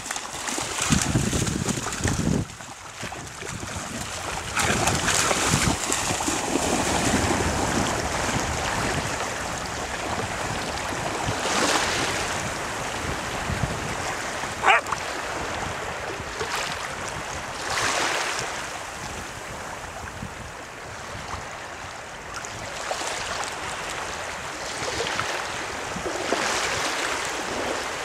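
Shallow seawater sloshing and wind gusting on the microphone, with a dog splashing as it runs through the shallows in surges. A short, sharp, high-pitched sound comes about halfway through.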